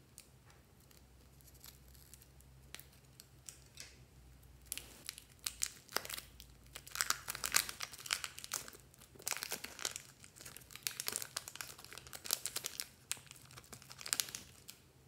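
Thin plastic wrapper crinkling and tearing as fingers pull it open and peel it off a soft filled tube. Quiet with a few small clicks at first, then dense crinkling from about five seconds in until just before the end.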